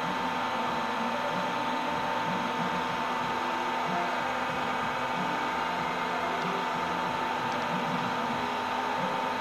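The used Silverson mixer stand's raise/lower drive running steadily: a constant motor hum with a steady whine, as the column moves the mixer arm.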